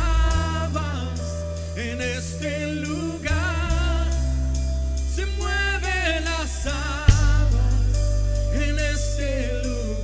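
Live worship band music: bass, keyboard and guitar holding sustained chords under a singing voice with a wavering melody, and one loud drum hit about seven seconds in.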